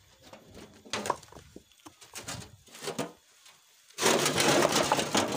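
Stones being tipped out of a steel wheelbarrow tray, clattering and tumbling onto a rock pile in a loud rush about four seconds in, lasting a second or two. Before that, a few separate knocks as the loaded barrow is jolted over rough ground.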